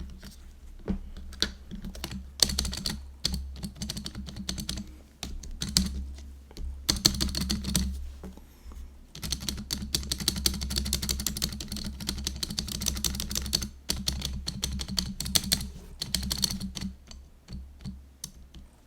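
Mechanical keyboard spacebar pressed over and over, singly and in quick rapid runs, with the stabilizer clicking and rattling. The rattle persists with a replacement spacebar, which the owner traces to undersized, likely factory-damaged stabilizer stems.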